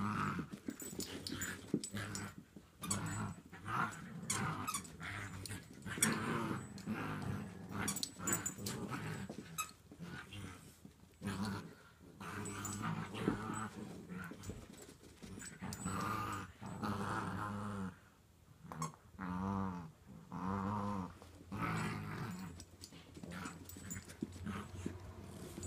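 Small dogs play-growling while tugging a rope toy between them: a string of low growls, each about a second long, with short gaps and a few light clicks between.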